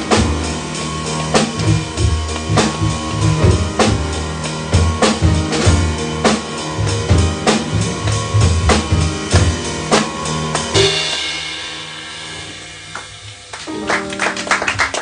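Live jazz band of saxophone, piano, double bass and drum kit playing with busy drumming, ending about eleven seconds in on a final cymbal crash and held chord that rings away. Audience applause breaks out near the end.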